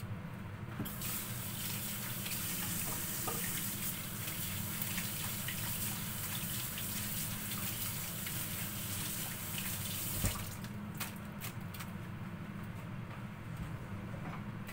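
Water running from a kitchen tap, turned on about a second in and shut off with a knock after about nine seconds, followed by a few clicks.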